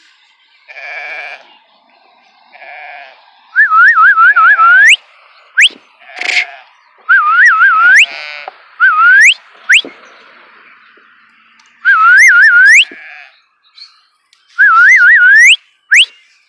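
A person whistling to call sheep to their grain: about six loud phrases of quick warbling whistles, each ending in a sharp rising sweep. Sheep bleat more quietly between the whistles, twice near the start and once in the middle.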